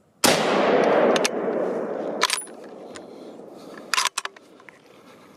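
A single .30-06 rifle shot: a sudden loud crack about a quarter second in that rolls on and fades over about two seconds. A few sharp clicks follow.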